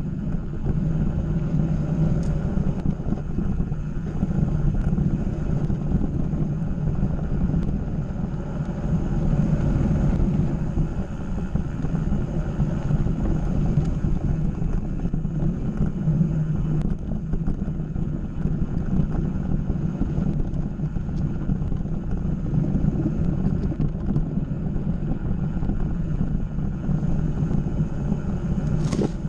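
Steady low rumble of wind buffeting the action camera's microphone and mountain bike tyres rolling over a dirt singletrack, with a single sharp click near the end.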